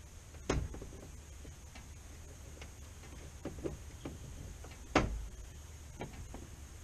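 Plastic push-pin fasteners popping out of the top radiator shroud under a trim clip removal tool. There are two sharp clicks, about half a second in and about five seconds in, with several lighter ticks between them.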